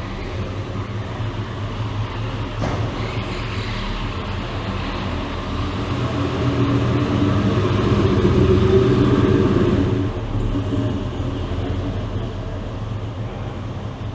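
A motor vehicle engine running, a low steady rumble that grows louder to a peak about eight or nine seconds in, then eases back.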